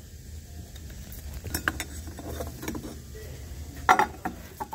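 Steel parts of a Ford 8F35 automatic transmission clinking and knocking as the sun shell and its thrust bearing are worked off the shaft and lifted out of the case. A few light clinks come in the middle, then a louder clatter near the end.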